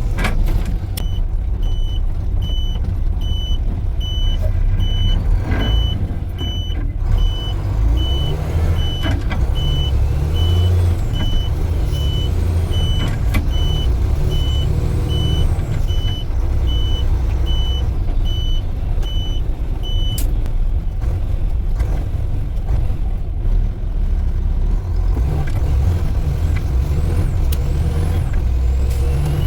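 Concrete pump truck's diesel engine running under way with a steady low rumble. A high electronic beep repeats evenly, about one and a half times a second, for the first two-thirds, then stops.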